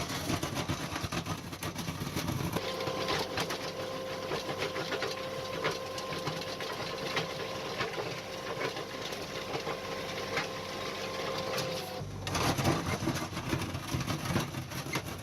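Skid steer loader running steadily, with a steady whine from about three seconds in. The sound changes abruptly near twelve seconds.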